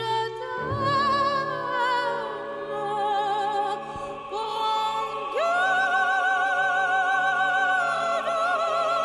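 An opera recording played over electrostatic loudspeakers and heard in the room: long held notes with wide vibrato over a steady accompaniment. One note slides up about five seconds in and is held for nearly three seconds.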